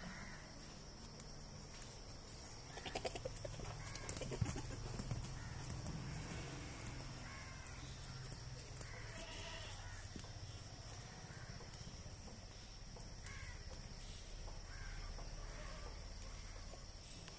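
Crows cawing with short harsh calls spread through, over a steady high insect hum. A rougher, louder pulsing sound about three to five seconds in.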